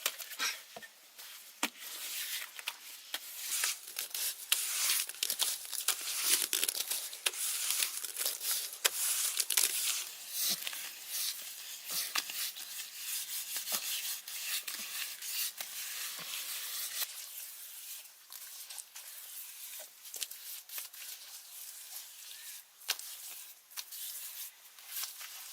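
Rustling, tearing noise full of sharp clicks and crackles, busiest in the first half and thinning out after about two-thirds of the way through.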